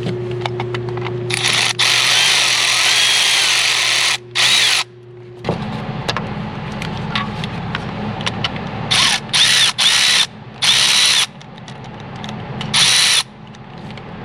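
Cordless power tool backing out the bolts that hold down a 7.3 Powerstroke's intake air heater relay. It whines in one run of about three seconds, then in several short bursts.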